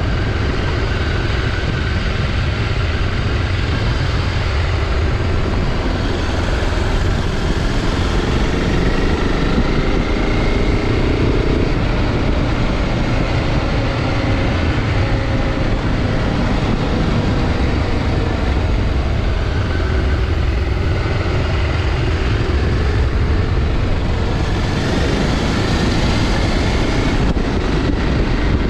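BMW G650 Xcountry's single-cylinder engine running while riding, its pitch slowly rising and falling with throttle, under a steady rush of noise.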